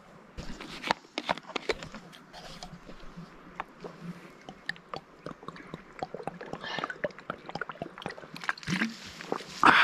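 A person drinking from a bottle: sloshing liquid and irregular clicking gulps, with a loud breath out near the end.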